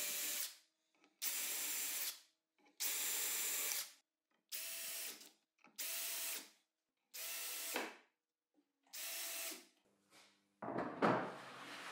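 Drill running a self-centering bit in seven short bursts of about a second each, drilling the pilot holes for the screws that fix an HPL slider to the underside of a table saw sled; the motor winds down at the end of some bursts. Near the end comes a knock and scrape as the wooden sled is set onto the saw table.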